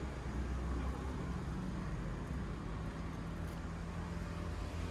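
Street ambience dominated by a steady low hum of motor traffic, with a held engine drone.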